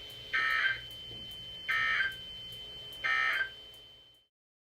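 NOAA Weather Radio Emergency Alert System end-of-message code: three identical short bursts of digital data tones, about one and a third seconds apart, signalling the end of the broadcast warning. A faint steady high tone runs underneath, and everything cuts off about four seconds in.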